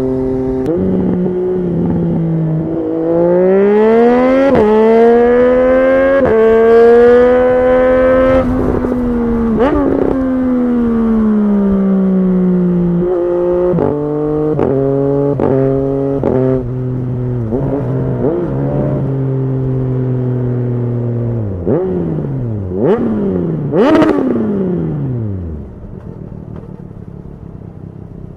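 Triumph Street Triple 765's three-cylinder engine pulling hard up through the gears, its pitch climbing with a short dip at each upshift, then winding down as the bike slows and holding a steady note. Near the end come several quick downshifts with short rising revs, after which the engine drops to a much quieter low note.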